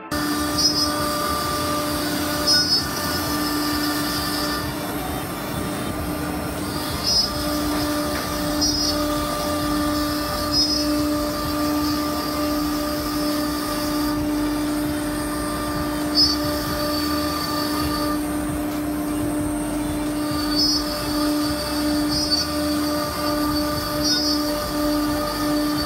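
Semac SM-1325R1B CNC router running, its spindle giving a steady whine as it routes a melamine-faced panel. A second, much higher whine comes in and cuts out every few seconds.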